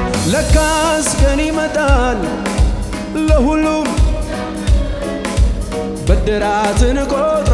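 Live Ethiopian Protestant worship song (mezmur): a singer's voice with a wavering vibrato over a band with a steady bass-drum beat about every three-quarters of a second.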